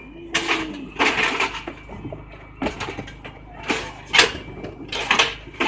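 Cardboard banana boxes being folded and pushed into box-forming jigs: irregular scraping rustles of cardboard and sharp knocks against the frames, about half a dozen in a row, one longer scrape about a second in.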